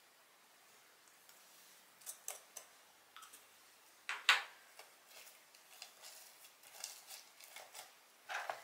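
Irregular faint clicks and sticky crackles from homemade slime being handled and worked, starting about two seconds in, loudest a little past the middle and again near the end.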